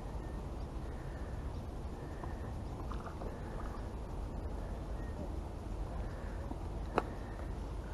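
Pondside outdoor ambience: a steady low rumble with faint chirps now and then, and one sharp click about seven seconds in.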